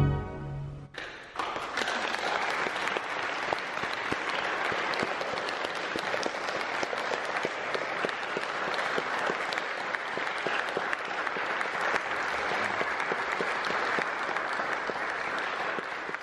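Audience applauding steadily in a reverberant church. The applause starts about a second in, just after the last pipe organ chord dies away, and fades out at the end.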